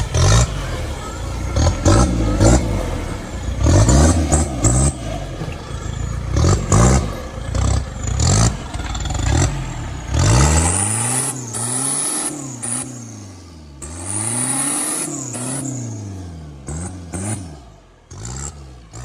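Off-road vehicle's engine revving up and falling back again and again, with clattering through the first half; from about ten seconds in the rev swells come every second or so.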